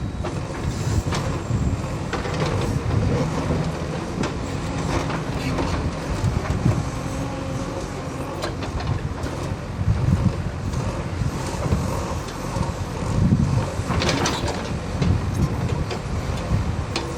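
Backhoe loader's diesel engine running steadily, with scattered metallic clanks and knocks from the machine working.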